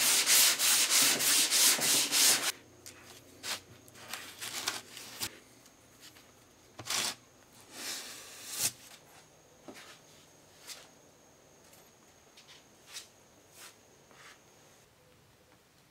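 Hand sanding of Bondo body filler on a car bumper: quick back-and-forth scratchy strokes, about four a second, that stop about two and a half seconds in. After that come quieter, scattered scrapes of a plastic spreader mixing filler and laying it on the bumper, two of them louder, around the middle.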